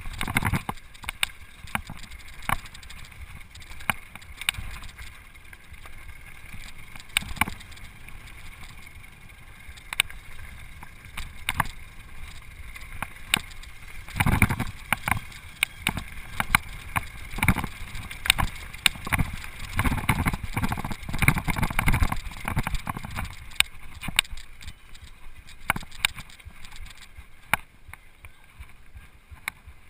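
Mountain bike riding fast down a dirt and gravel trail: the bike rattles, with frequent sharp clicks and knocks over bumps and tyres crunching, plus rushing noise. A heavier low rumble comes in bursts from about halfway to about two-thirds through.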